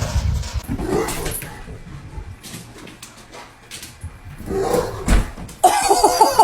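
A dog vocalising, loudest for about a second near the end.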